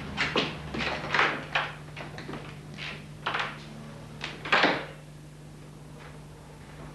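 Footsteps of high heels on a parquet floor together with door knocks, a string of irregular short knocks with the loudest thump about four and a half seconds in. A steady low hum lies underneath.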